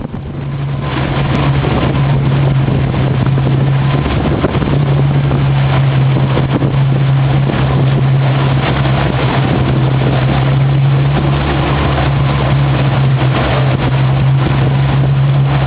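Yamaha 250 outboard motor running steadily at cruising speed, a constant engine drone that dips briefly about four seconds in, with wind noise on the microphone.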